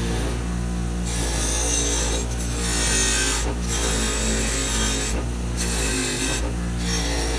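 Delta bench grinder running steadily while its wire wheel scrubs against the steel lamp housing, stripping old paint with a harsh rasping. The rasp breaks off briefly four or five times as the piece is lifted and turned.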